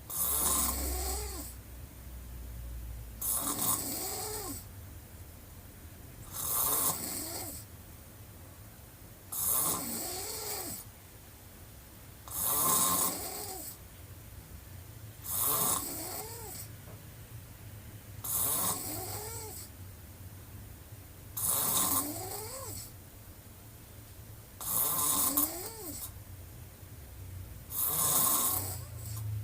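A woman snoring with her mouth wide open: about ten snores, one roughly every three seconds. Each is a breathy rasp carrying a tone that rises and then falls in pitch.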